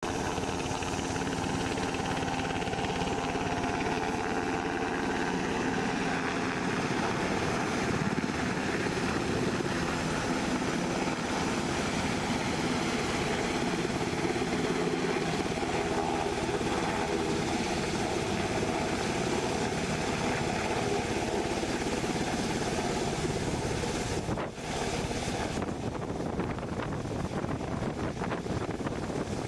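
HH-60W Jolly Green II helicopter running: its twin turboshaft engines whine steadily over dense rotor noise. The sound drops out for a moment about three-quarters of the way through, then carries on.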